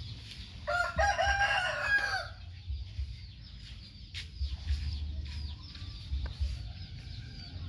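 A rooster crowing once, about a second in and lasting about a second and a half; a single sharp click follows a couple of seconds later.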